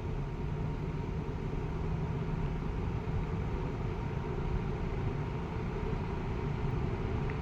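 Monarch Aire 20-inch two-speed box fan running on low speed, a steady whoosh and motor hum, mixed with the steady rumble of a gas furnace running that largely covers it.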